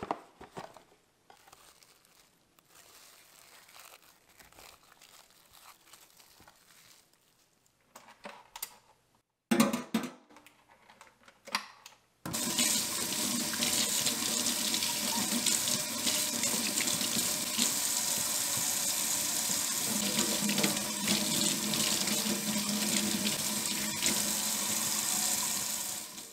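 Kitchen faucet running steadily into a stainless steel sink, the stream splashing over hand-mixer beaters as they are washed. Before it, faint clicks and a couple of louder knocks; the water starts suddenly about twelve seconds in.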